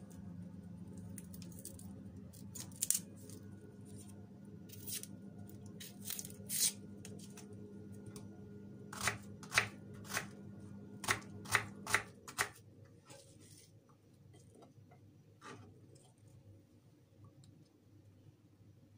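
Kitchen knife cutting an onion on a wooden chopping board: irregular sharp knocks of the blade striking the board, coming thickest in a quick run about halfway through. A low steady hum underneath cuts off about two-thirds of the way in.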